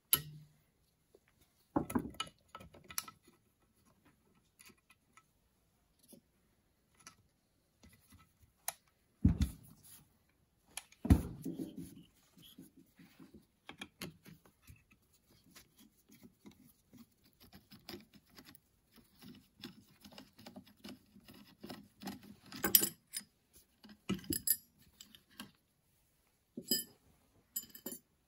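Small metal parts of a Motorcraft 2150 two-barrel carburetor and hand tools clicking and clinking as the carburetor is taken apart by hand, with several louder knocks and some scraping and rustling in between.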